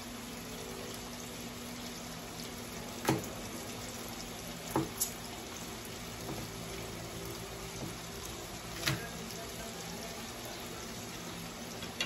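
T-bone steaks frying in a grill pan, a steady sizzle over a low hum, with a few sharp knocks of a knife on a wooden chopping board.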